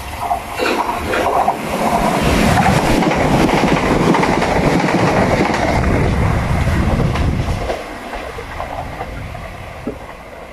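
Class 387 Electrostar electric multiple unit in Gatwick Express livery running through the station without stopping. There are a few sharp clicks as it arrives, then a loud rush of wheel and rail noise for about five seconds, fading about eight seconds in as it draws away.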